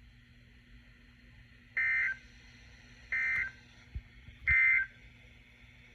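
Three short, loud bursts of Emergency Alert System digital data tones from a NOAA Weather Radio, about a second and a half apart. They form the end-of-message signal that closes the warning broadcast.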